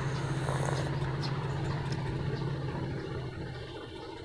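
Steady low mechanical hum, engine-like, that fades away a little under three seconds in, leaving faint background noise.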